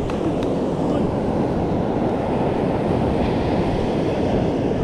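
Surf washing onto a sandy beach, a steady rushing noise, with wind buffeting the microphone.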